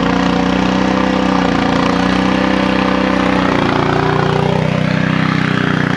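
Small gasoline engine of a portable flood pump running steadily on the sandbag dike, pumping floodwater out. Its tone shifts slightly about halfway through.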